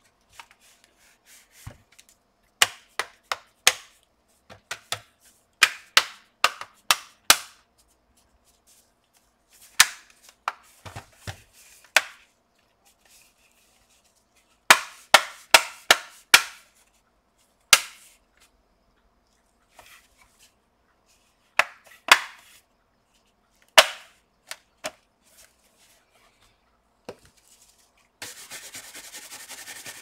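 Plastic bottom cover of an HP Omen 17 laptop snapping onto the chassis: sharp clicks in quick clusters as the clips are pressed home along the edges. Near the end, a brush sweeping across the cover gives a short rustling hiss.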